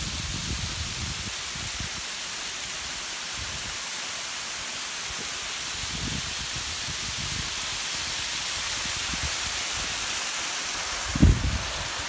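Steady hiss of a waterfall, thin streams of water pouring and splashing down a rock face. Uneven low rumbling runs beneath it, and a single thump comes near the end.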